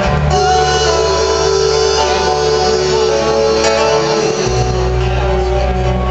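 Live rock music from a band playing through an arena sound system, heard from the audience seats. The deep bass drops out just after the start and comes back about four and a half seconds in.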